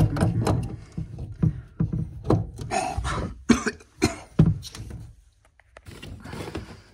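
A run of sharp clicks and knocks from hands working plastic waste fittings and a small valve under a kitchen sink.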